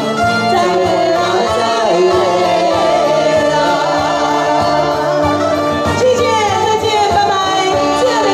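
Live band music: a man and a woman singing into microphones over amplified keyboard and saxophone backing.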